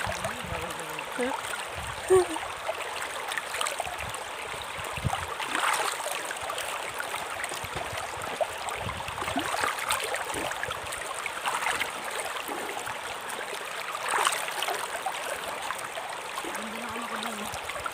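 Shallow river running over stones: a steady rush of water, with a few brief splashes from someone moving in the water.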